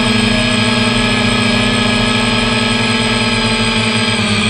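DJI F330 quadcopter's electric motors and propellers whining steadily, picked up by a camera on the frame; the pitch dips slightly near the end as the throttle eases.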